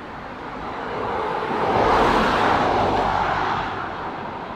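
Land Rover Defender driving past, its engine and tyre noise swelling to a peak about two seconds in and then fading.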